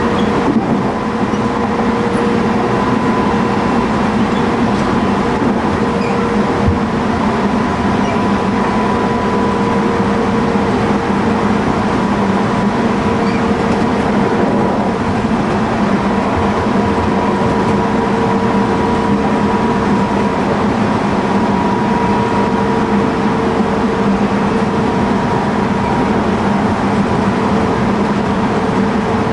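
Interior running sound of a Tobu 20050 series electric train car with GTO-thyristor VVVF inverter traction gear, travelling at speed. Steady rumble of the car on the track, with a faint steady two-note hum.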